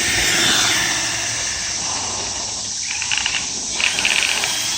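Crickets chirping in short pulsed trills over a steady insect hiss. In the first second a whine falls in pitch, the electric motor of a Traxxas E-Revo RC truck slowing down.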